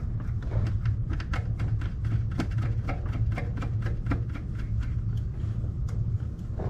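Irregular small clicks and taps of hand tools on the AC line fitting as the nut is worked loose, a few a second, over a steady low hum.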